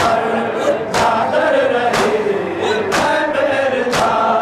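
A crowd of men chanting a noha, a Shia lament, in unison, with matam: their hands striking their chests together in a steady beat of about one stroke a second.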